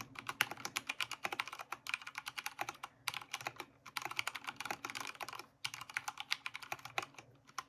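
Typing on an AKKO 3084 mechanical keyboard with brown tactile switches: quick runs of keystroke clicks broken by a few brief pauses.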